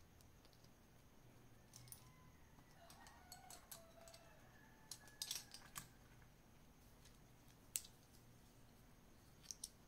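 Faint clicks and clacks of plastic spudgers and pry tools being picked up and knocking together, with a few faint squeaks in the middle, a sharp click about eight seconds in and two quick clicks near the end.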